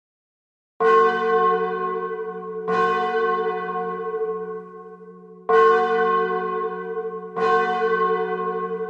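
A single church bell struck four times in two pairs, starting about a second in. Each stroke rings on and fades under the next.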